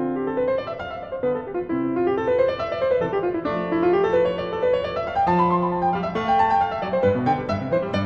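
Background music: a piano playing flowing runs of notes that rise and fall.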